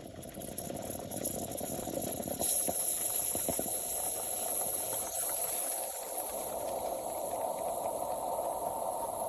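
Espresso machine hissing with steam, growing louder over the first two seconds and then holding steady, with a few clicks or rattles about three seconds in.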